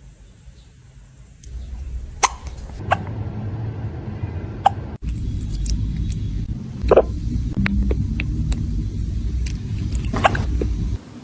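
A kitten hiccuping: about five short, sharp hiccups at irregular intervals, over a low rumble.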